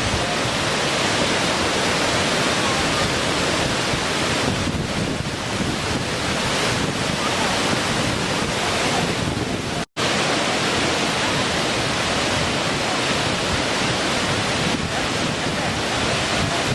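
Small waterfall: a steady, continuous rush of falling and splashing water. It cuts out for a split second about ten seconds in.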